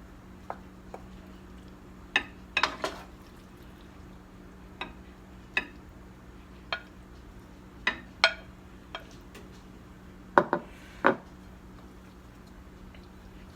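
Serving utensil clinking and scraping against a pan and a plate as pasta is dished up: about a dozen irregular clinks, the loudest near the end, over a steady low hum.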